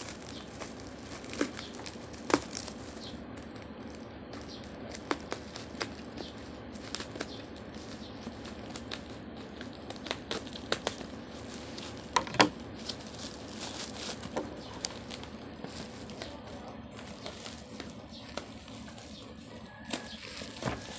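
Plastic parcel wrapping crinkling and rustling as it is cut open with scissors, with scattered sharp snips and crackles over a steady hiss. The loudest crackles come about twelve seconds in.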